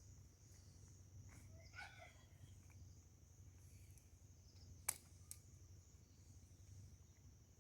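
Near silence: faint background tone with a steady high whine, a faint brief chirp about two seconds in, and a single sharp click near five seconds.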